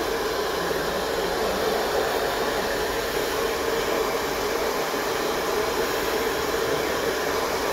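Handheld hair dryer blowing steadily on wet hair: a continuous rush of air with a steady hum.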